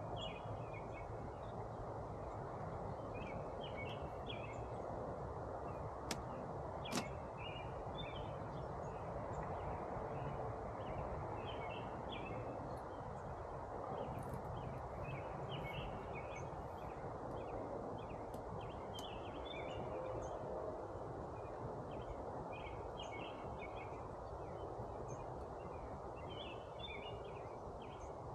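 Birds chirping again and again over a steady, even rushing background, with two sharp clicks about six and seven seconds in.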